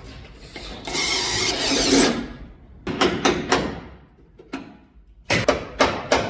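Hand-tool work on car body panels: about a second of scraping, rushing noise, then a series of sharp clicks and knocks, quickening near the end.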